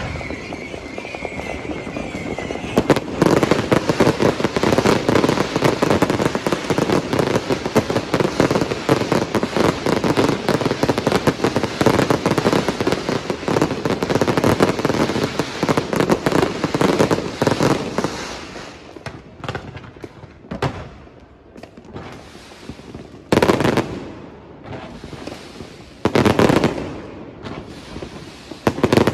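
Fireworks: a dense, continuous crackle of rapid pops and bangs that thins out about two-thirds of the way through into a few separate loud bursts. A high steady whistle sounds for the first couple of seconds.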